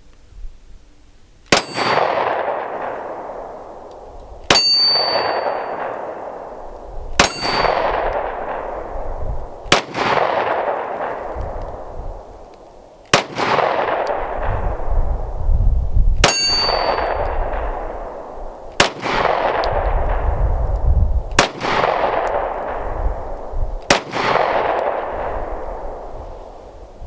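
Nine slow, deliberate shots from a 9mm PSA Dagger Compact pistol firing 124-grain hollow-point rounds, spaced about two and a half to three seconds apart. Each crack is followed by a long ringing decay, with a metallic clang after some shots.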